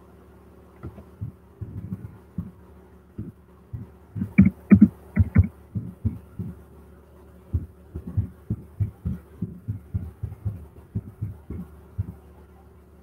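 Irregular soft thumps and taps on the device carrying the microphone, a few sharper clicks about four to five and a half seconds in, over a steady electrical hum.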